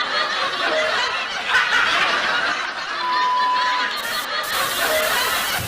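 Several people laughing and snickering together without a break, with a brief steady beep about three seconds in.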